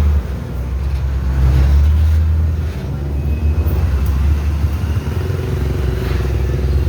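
Road vehicle engine and road noise: a steady, loud low rumble of traffic.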